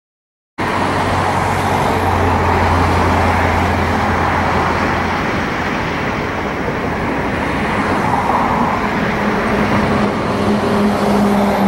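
Steady outdoor traffic and rail-line noise that starts abruptly about half a second in. From about nine seconds in, a steady low hum grows as an ITX-Cheongchun electric train approaches along the track.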